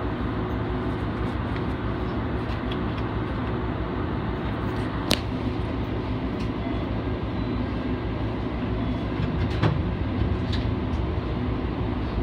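Diesel railcar engine idling steadily while the train stands at the platform, heard from inside the car. Two sharp clicks stand out, one about five seconds in and one near ten seconds.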